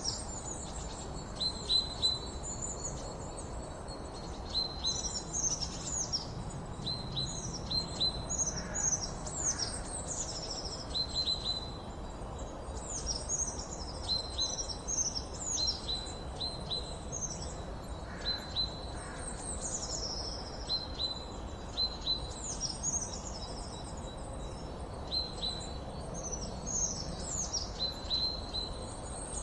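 Small birds chirping and twittering with quick, high, sweeping notes that come one after another, over a steady low background noise.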